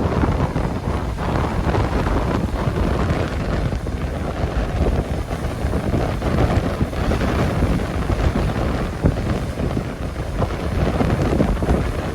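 Strong wind buffeting the microphone: a loud, uneven low rumble that rises and falls in gusts.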